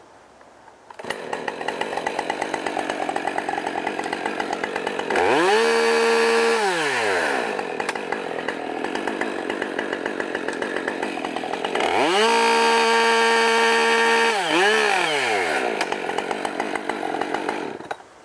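Two-stroke chainsaw running from about a second in, twice revved up to full throttle for a few seconds as it cuts into a log, then dropping back to idle. The two cuts are a short relief cut on the compression side and a finishing cut through the tension side, so the bar does not get pinched. The engine cuts out near the end.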